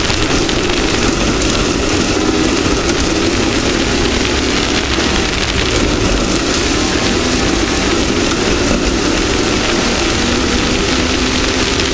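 Off-road race vehicle engine running steadily under a loud, even hiss of wind and rough-ground noise.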